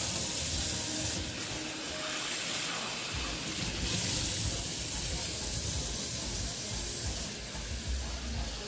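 Kitchen tap running into a sink while something is rinsed under it. The flow swells and eases several times, loudest near the start, about halfway through and near the end.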